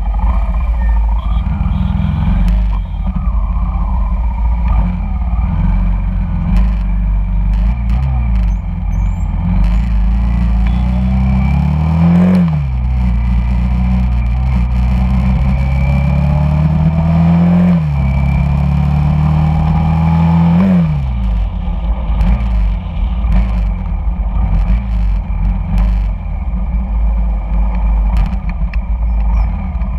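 Honda Shadow cruiser's V-twin engine running under the rider, first at low revs in slow traffic. About halfway through it pulls away and accelerates: the revs climb and drop sharply three times as it shifts up through the gears.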